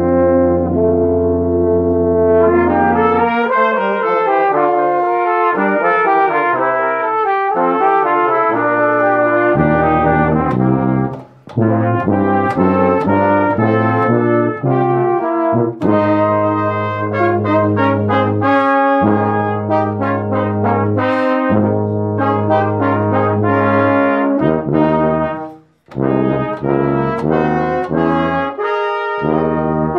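Brass ensemble playing a piece in chords and moving lines, with a deep held bass note that stops about three seconds in and two short breaks in the music, one about eleven seconds in and another near twenty-six seconds.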